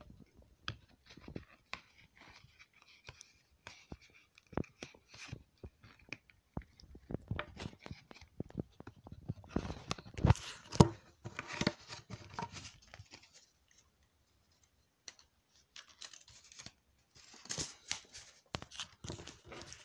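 Paper envelopes and foil notes rustling and crinkling as they are handled, in irregular bursts with scattered clicks, loudest about halfway through.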